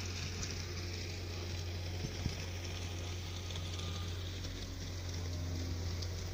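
A passenger train running slowly, heard from inside: a steady low hum with running noise, and a couple of short knocks about two seconds in.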